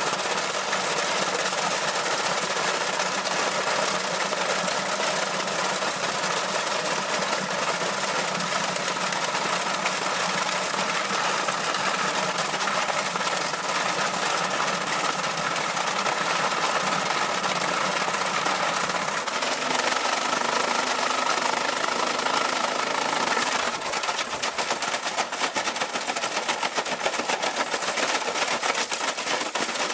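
Washing machine tearing itself apart in a violent spin, its drum banging and rattling in a fast, continuous clatter. About 24 s in, the clatter breaks into more separate, uneven knocks.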